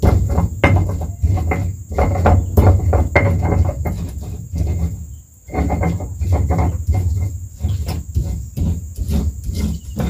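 Rapid, irregular knocking, several sharp strikes a second with a short pause about halfway through, while crickets trill steadily in the background.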